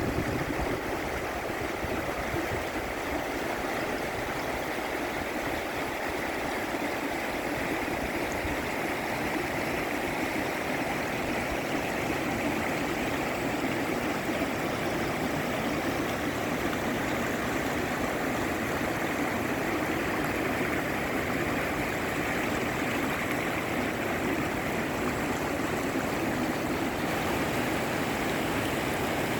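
Steady rush of river water flowing fast, an even, unbroken noise.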